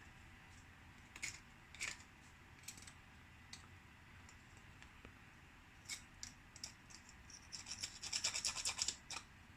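Scratching and scraping on a freshly 3D-printed plastic money clip: a few separate short scrapes, then a quick run of rapid scratches near the end.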